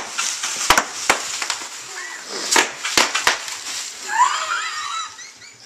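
Bubble wrap crinkling and several sharp knocks of handling, then a high, rising, wavering voice-like call about four seconds in.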